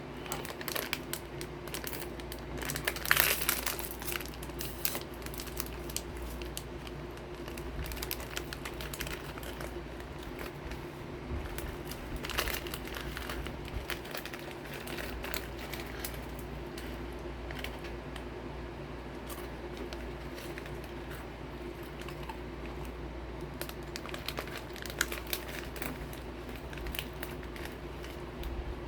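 Crinkly plastic snack wrapper of Gosomi crackers rustling and crackling as it is handled, in irregular bursts, loudest about three seconds in. A steady low hum runs underneath.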